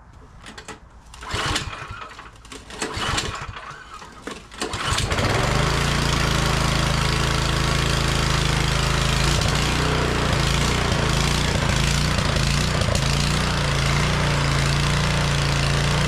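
MTD Pro snowblower's 179cc four-stroke engine being cranked on its electric starter, turning over unevenly for about five seconds, then catching and running steadily. A dirty carburetor had kept it from starting.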